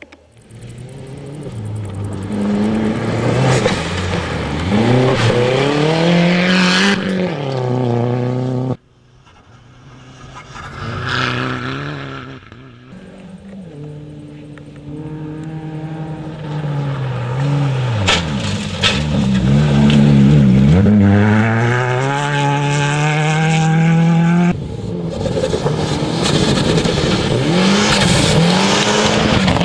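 Rally cars passing one after another on a gravel stage, their engines revving hard, rising and falling in pitch through lifts and gear changes. The sound breaks off suddenly between passes, most sharply about nine seconds in.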